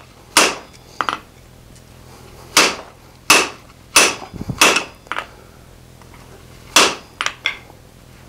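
Hand hammer striking a red-hot steel hammer-head blank on an anvil while its peen is shaped symmetrical. About six full blows come at an uneven pace, each with a short metallic ring, and lighter knocks fall between them and near the end.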